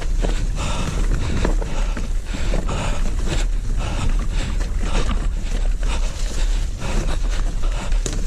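Wind rumbling on the microphone over a steady stream of irregular clattering knocks and rattles, as of moving fast down a rough rocky trail.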